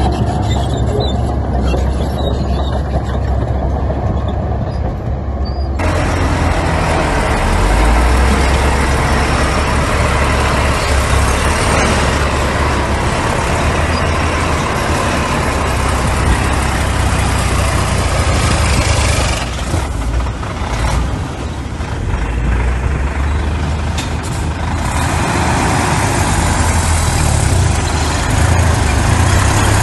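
Heavy diesel earthmoving machinery running steadily, a strong low engine drone with a broad noisy hiss above it from about six seconds in.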